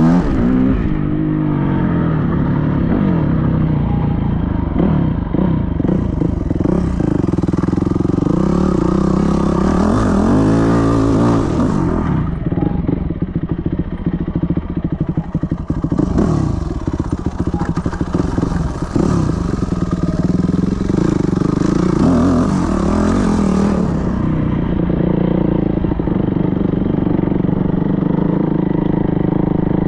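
Yamaha WR250F's single-cylinder four-stroke engine revving up and down as the trail bike is ridden over rough dirt, its pitch rising and falling over and over.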